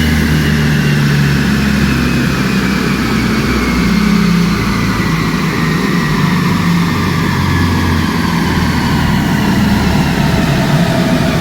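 Mercedes-AMG C43's twin-turbo V6, fitted with upgraded turbos, running loud on a chassis dyno. Its note slowly falls in pitch.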